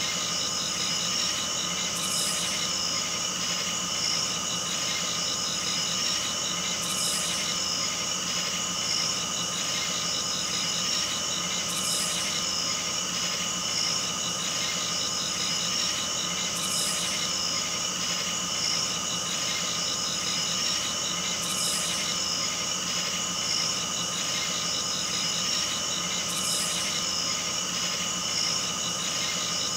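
A steady, unchanging hum made of several held tones over a hiss, with a fine rapid flutter in the upper range and a high hiss that swells briefly about every five seconds.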